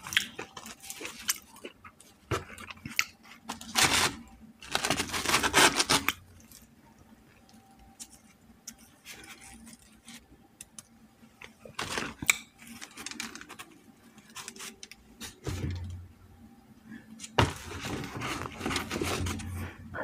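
Close-miked eating of a fried chicken sandwich on a soft bread roll: crunchy bites and wet chewing come in bursts, with quieter gaps between.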